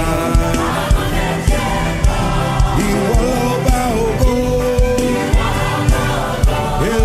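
Live gospel worship music: a choir singing long held lines over bass and a steady drum beat of about two kicks a second.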